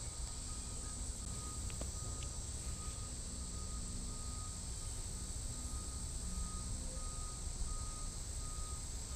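Insects singing in summer woods: a steady high-pitched drone, with a fainter, lower tone pulsing about twice a second beneath it.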